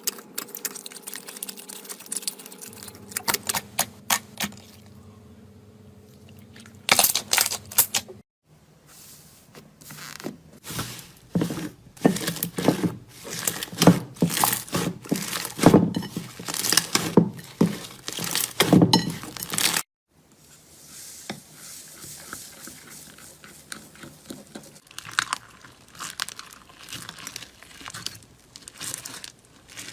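Crunchy slime being squeezed and pressed, giving dense crackling and crunching with sharp pops, in a few short clips cut one after another.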